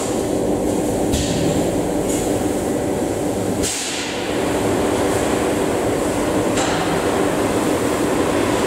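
Steady machine hum and hiss of a running Bystronic CO2 laser cutting machine. The higher hiss changes abruptly about a second in, near four seconds and again between six and seven seconds.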